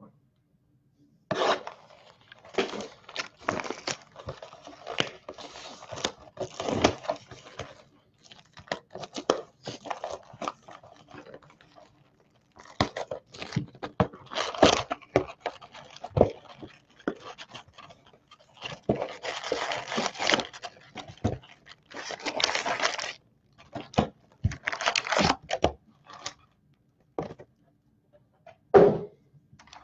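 Plastic shrink wrap being torn and peeled off a sealed cardboard trading-card hobby box, then the box opened and the foil-wrapped packs handled, crackling and rustling in irregular bursts. A single sharp knock comes near the end.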